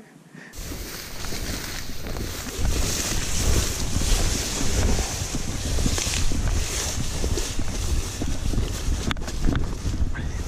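Wind buffeting the microphone: a loud rumbling rush that rises and falls in gusts, starting abruptly about half a second in.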